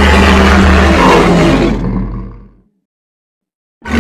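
A loud monster roar sound effect with a deep rumble underneath, lasting about two and a half seconds and fading out. After a second of silence a second roar begins near the end.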